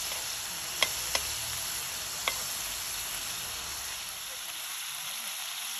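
Meatballs sizzling steadily as they fry in oil in a metal frying pan, with a metal spoon clicking sharply against the pan three times in the first couple of seconds as they are stirred.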